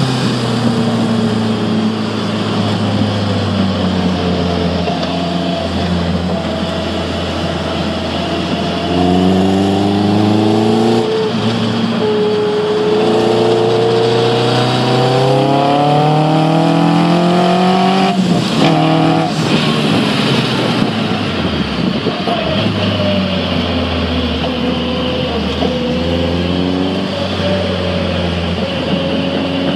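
Caterham R300's four-cylinder engine heard from inside the open cockpit, driven hard around a track. Its pitch climbs under acceleration and falls back several times, dropping sharply about two-thirds of the way through, then climbs again near the end.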